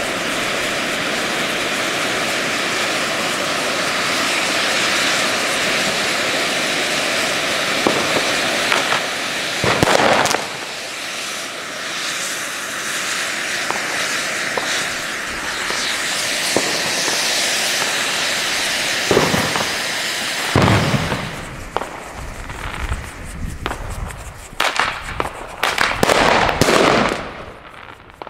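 Array of ground fountain fireworks burning with a steady rushing hiss of sparks, with a brief louder burst about ten seconds in. After about twenty seconds the hiss breaks up into irregular sharp pops and crackles, fading as the fountains burn out.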